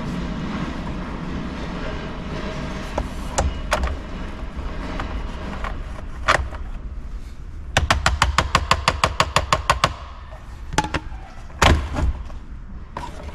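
Hand screwdriver working the Phillips screws of a Jeep TJ's plastic steering column covers: scattered clicks and knocks, and about two seconds in the middle of rapid, even clicking at about ten a second, like a ratchet.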